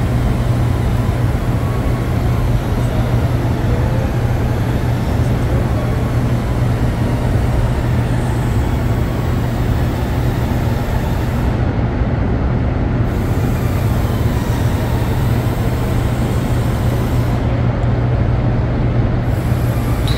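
Steady, loud low hum of the Hoover Dam powerhouse's hydroelectric turbine-generators, with a constant rushing noise over it.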